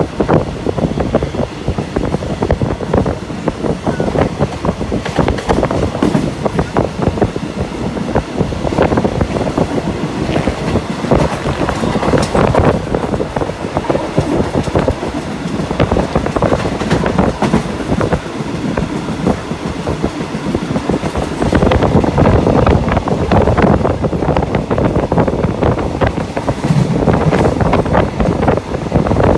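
Passenger train running along the track, heard from inside the carriage: a steady rattle and clickety-clack of the wheels over the rails, a little louder in the last few seconds.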